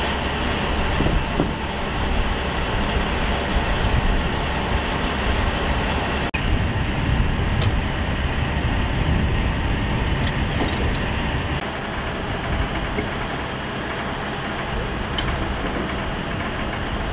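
Heavy diesel engine of a crane truck running steadily, with a brief dropout about six seconds in and a few faint metallic clinks.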